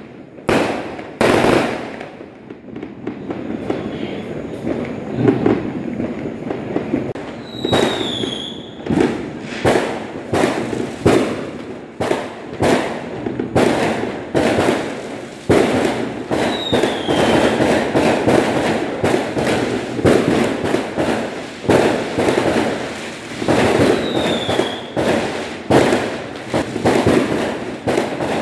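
Fireworks going off: a rapid, irregular run of bangs with crackling in between. A short, high, falling whistle cuts through four times.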